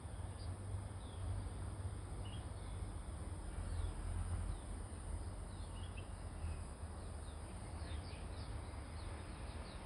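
Outdoor ambience: many short, scattered bird chirps over a low rumble and a steady high hiss.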